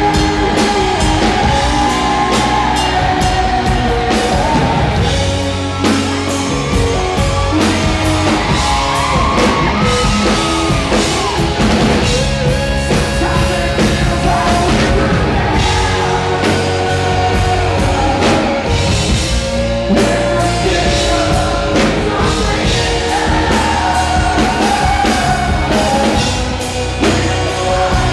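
Live rock band performing: a male lead vocal sung loudly over electric guitar and a drum kit.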